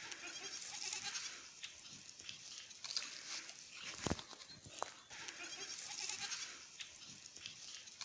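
A herd of miniature goats bleating over a faint outdoor hiss, with a single dull knock about four seconds in.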